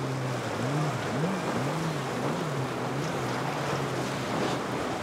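Boat engine running, its pitch rising and falling about twice a second for the first three seconds and then holding steady, over a steady rush of wind and water.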